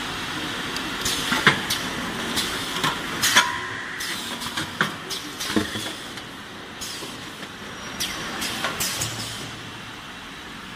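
Toilet-paper production machinery running: a steady mechanical hum with many irregular sharp clicks and knocks, which thin out about nine seconds in.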